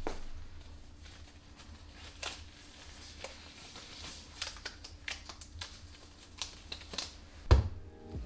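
Irregular light clicks and taps of small objects being handled, with one louder knock about seven and a half seconds in.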